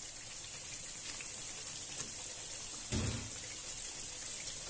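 Curry spice paste sizzling steadily in hot oil in a pan, with faint crackles, frying until the paste is cooked through. A single dull thump comes about three seconds in.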